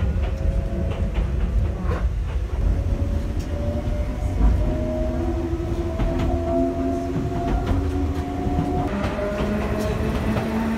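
Enoden electric train running on its rails: a steady low rumble with the clicks of wheels over rail joints, and a motor whine that rises slowly in pitch as the train gathers speed. About nine seconds in, the sound changes to a train passing close by.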